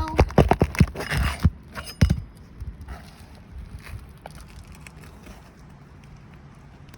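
A quick run of sharp metal clicks and knocks, a roof snake working under asphalt shingles to pull a roofing nail, with about a dozen strikes in the first two seconds. After that there are only faint scraping sounds.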